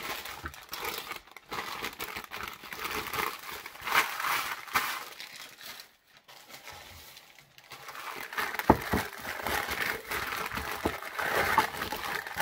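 Newspaper crumpling and rustling as a wrapped item is unwrapped by hand, with a brief lull about halfway through and a few light knocks in the second half.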